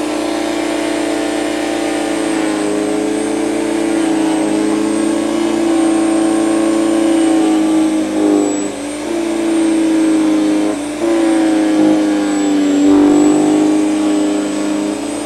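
Powersmart PS10 electric chipper shredder running with a steady motor hum; its pitch and level sag briefly a few times in the second half as branches are fed in and the motor takes load.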